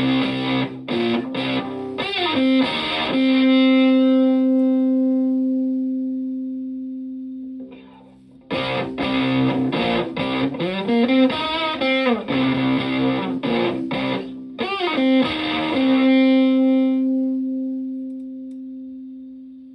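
Stratocaster played through a Vox Tone Bender V828 fuzz pedal into a Twin Reverb-style amp: two short phrases of picked fuzz notes, each ending on a held note that sustains for several seconds and slowly fades.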